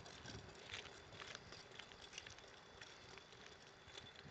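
Near silence: faint outdoor hiss with scattered, irregular soft clicks.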